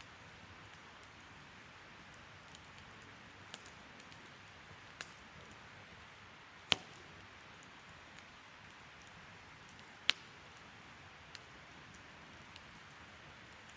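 Wood campfire burning with a soft steady hiss and scattered sharp crackles and pops, the two loudest pops about seven and ten seconds in.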